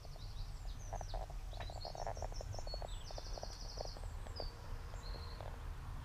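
Small birds chirping and giving short high trills, with a lower, rapid rattling call in the first half, over a steady low wind rumble on the microphone.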